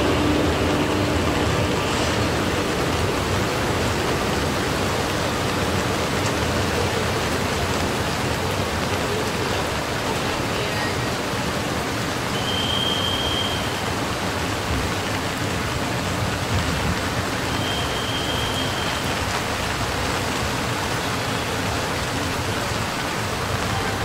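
Steady rain falling, a constant even hiss, with a short high tone sounding twice in the second half.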